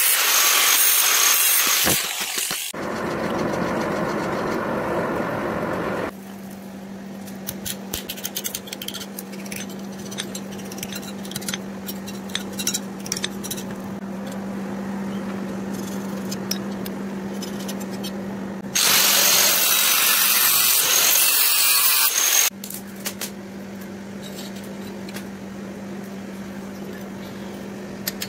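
Metalworking power tool on a leaf-spring steel sword blade: a motor running with a steady hum, with loud harsh grinding noise at the start and again about two-thirds through, and scattered scraping and clicks in between.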